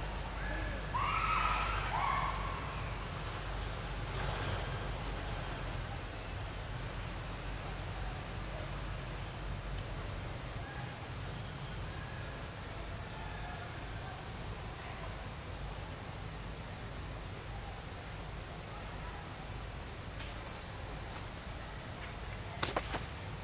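A few short, arching animal calls in the first two seconds or so, then steady outdoor background with a faint, high, pulsing hum. Two sharp clicks near the end.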